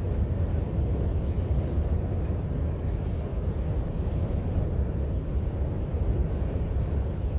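Steady low rumble of a freight train of hopper cars rolling across a steel truss lift bridge, even throughout with no horn or distinct clanks.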